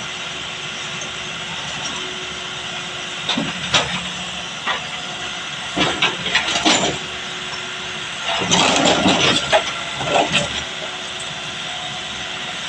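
Backhoe engine running steadily with a hissing roar. Three spells of louder noise with sharp knocks come about a third of the way in, near the middle and again later.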